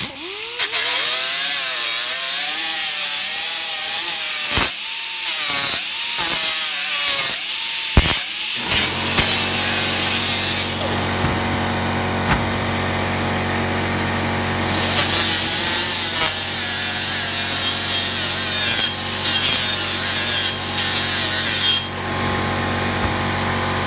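Air-powered 90-degree die grinder with a 24-grit sanding disc grinding the rough casting edge and handle part line of a cast iron skillet: a high hiss of disc on iron, with a whine that wavers as the load changes. About nine seconds in, a steady low hum joins. The grinding hiss drops out for a few seconds around the middle and then resumes.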